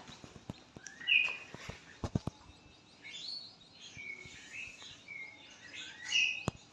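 Small birds chirping, short rising-and-falling calls repeated several times, with a few light knocks about two seconds in and near the end.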